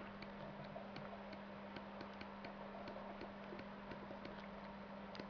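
Faint, irregular clicks and taps of a stylus writing on a tablet screen, over a low steady electrical hum.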